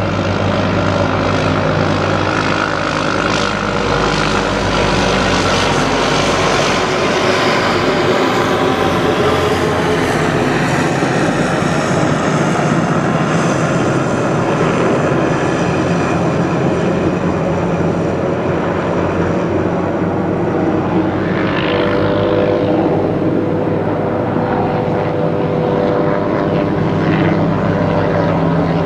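Low-flying military helicopters passing overhead: loud, steady rotor and engine noise, with its pitch slowly shifting as they pass.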